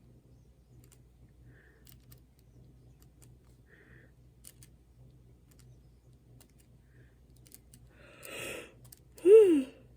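Faint scattered clicks and small handling noises of paper craft pieces being worked at a table. Near the end there is a short rustle, then a brief voiced sound falling in pitch.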